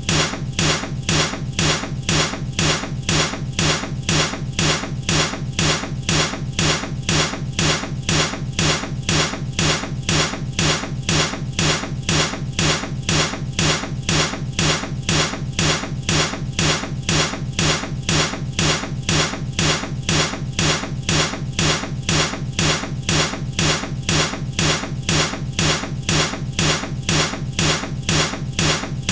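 Baseball bat striking something over and over in a loop, sharp hits repeating evenly several times a second.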